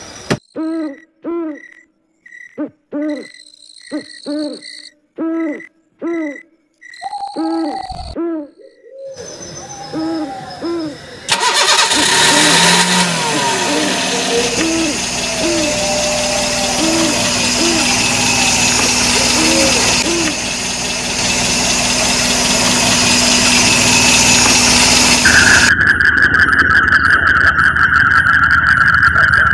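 A night bird hooting over and over in short calls. About eleven seconds in a car engine starts and keeps running, with the hoots still faint beneath it. Near the end a high droning tone comes in over the engine.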